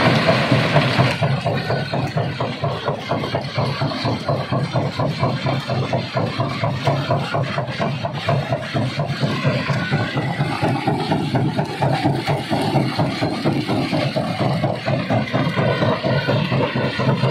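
Rock crusher at work: a steady engine hum under a constant, rapid clatter of stone being broken.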